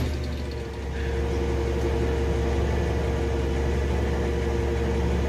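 Garbage truck's diesel engine running steadily under load, with a steady whine from the hydraulics that comes in about half a second in as the packer blade compacts the load.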